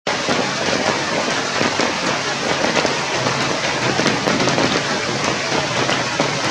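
Steady rain falling, a dense hiss made of many small drop impacts.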